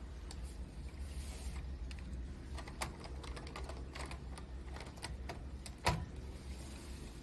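Lego pieces being handled, giving scattered light plastic clicks and taps, with one sharper knock about six seconds in.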